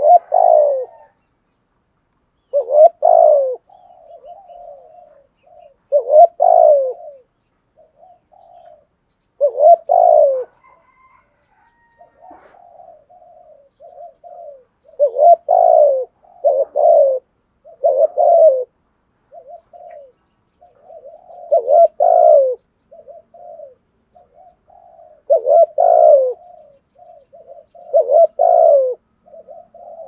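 Spotted dove cooing over and over, with a loud coo phrase about every three seconds and softer coo notes in between.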